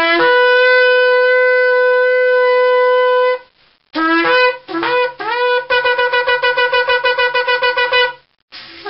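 Ram's horn shofar blown loudly: a long held blast that jumps from a low note to a higher one, then short blasts rising in pitch, then a rapid staccato run of about six notes a second, and a new blast starting near the end.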